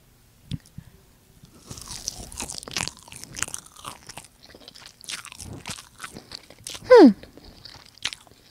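Chewing and crunching a mouthful of turkey right up against a handheld microphone, a dense irregular run of crunchy mouth noises starting about two seconds in. About seven seconds in comes a short voiced hum that slides down in pitch, the loudest sound.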